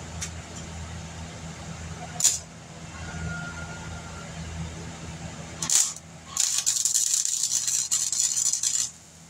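Welder crackling on sheet-metal body panel, one continuous run of about two and a half seconds that starts late and cuts off suddenly. It is preceded by two short sharp pops, and a steady low hum runs underneath.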